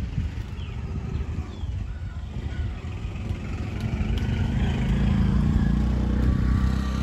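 A motor vehicle's engine running close by, growing louder from about halfway through.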